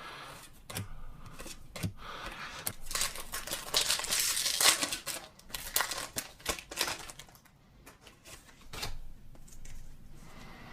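Foil wrapper of a Pokémon trading card booster pack crinkling and tearing open, with scattered clicks of cards being handled; the crinkling is densest and loudest in the middle.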